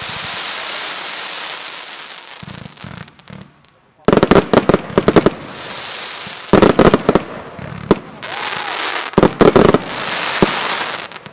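Röder Let's Fetz firework compound (146 shots, 20 to 30 mm calibre) firing. A loud rushing hiss from its rising comet tails comes first; from about four seconds in come rapid volleys of sharp crackling bangs from the bursting shots, alternating with more hiss.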